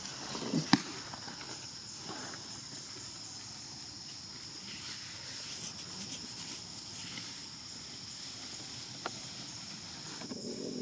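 Steady high insect drone, with a few sharp clicks or knocks, the loudest under a second in.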